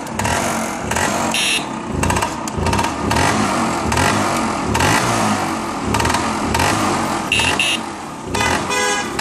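A Lambretta Vijai Super 150's single-cylinder two-stroke engine running, its revs rising and falling.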